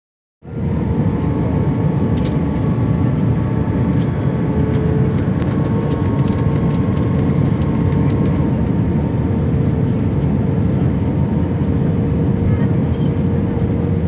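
Steady roar of jet engines and rushing air inside an airliner cabin on approach to landing, with a constant steady hum running under it.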